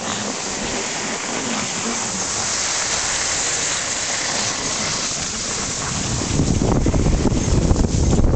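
Steady hiss of skis sliding over packed snow. From about six seconds in, a louder, rough low rumble of wind buffeting the microphone joins it as speed picks up.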